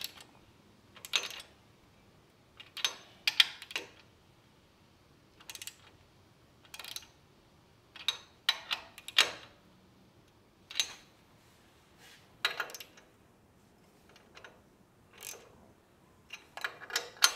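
Ratchet wrench clicking in short runs every second or two, with pauses between, as nuts are tightened a little at a time.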